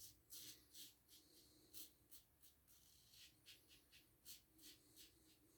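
Near silence, with faint, irregular scratchy strokes of a Gillette Ball-End Tech safety razor scraping stubble.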